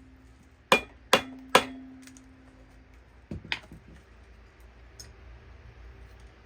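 Hard metal-on-metal strikes on the parts of a Mazda 13B rotary engine being taken apart: three sharp hits about half a second apart, one leaving a ringing tone, then a couple of lighter knocks about halfway.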